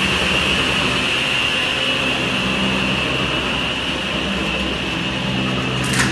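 Woodworking machinery running steadily, a constant hum and hiss with no change in pace, and a brief sharp noise at the very end.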